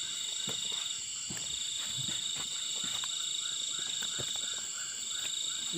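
Night insect chorus: crickets trilling steadily, with a frog calling in short repeated notes about three a second through the middle, and a few faint knocks.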